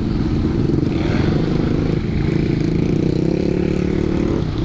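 Can-Am Renegade 1000 XXC ATV's V-twin engine running steadily under way, its pitch holding fairly even with small changes in throttle.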